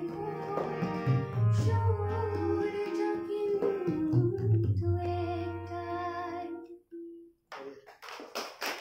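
Female voice singing a held closing phrase of a song with tabla accompaniment, the low drum tones repeating under the melody. The music fades out about seven seconds in, and a few sharp taps follow near the end.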